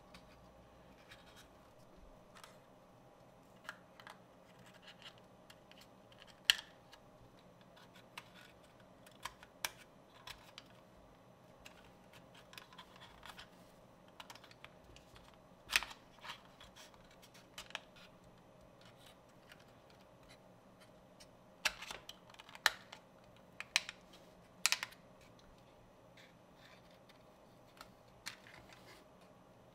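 Thin plywood puzzle pieces clicking and tapping as they are pressed and snapped into the slots of a wooden 3D model, with soft scraping of wood against wood between. The clicks come every second or two, with a cluster of the loudest ones in the second half.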